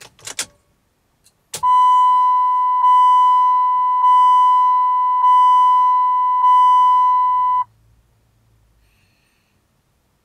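2001 Chrysler PT Cruiser's instrument-cluster warning chime sounding with the ignition on: one steady high tone, struck five times about a second apart, then cut off sharply. A few short clicks come before it.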